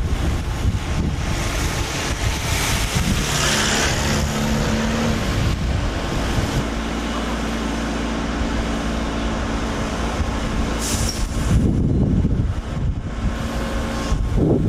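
Trolleybus standing with a hiss of air from its brakes a few seconds in, then a steady low hum.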